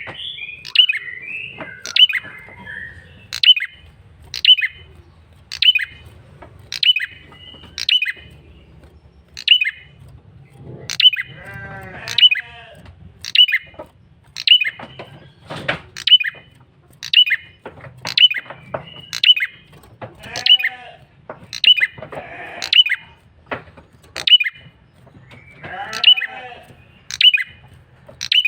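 A male prenjak kepala merah calling persistently as a lure call: sharp, high, downward-flicking notes repeated about once a second, broken a few times by bursts of rattling chatter.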